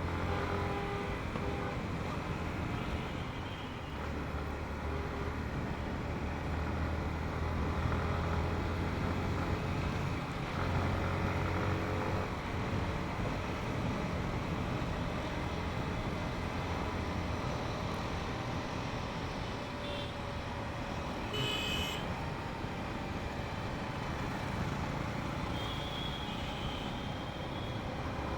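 Motorcycle engine running steadily while riding through city traffic, with road and wind noise on the microphone. A short high-pitched beep like a horn comes about three quarters of the way through.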